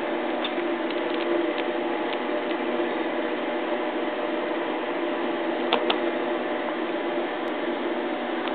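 A steady machine-like hum with several fixed tones, with a few faint clicks in the first few seconds and a quick pair of sharper clicks about six seconds in.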